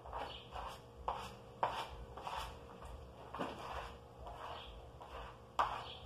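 Plastic spatula scraping over a wall freshly coated with gypsum plaster and wall putty (massa corrida), in quick repeated strokes about two a second, during the final smoothing pass. The strongest stroke comes near the end.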